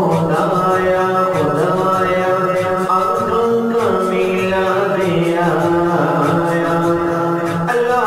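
Background music of an Islamic devotional song (naat): a chanted vocal melody in long held notes that slide from pitch to pitch over a steady low drone, with a soft regular beat.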